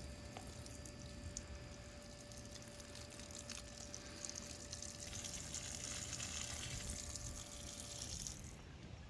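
Water spraying under pump pressure from a DIY PVC faucet with drilled holes, pattering onto gravel and grass. A faint steady whine runs underneath and stops about eight seconds in.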